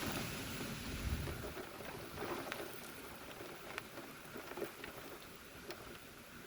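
Heavy thunderstorm rain and wind: a steady rush with scattered ticks of drops striking, and a low rumble that dies away in the first second and a half.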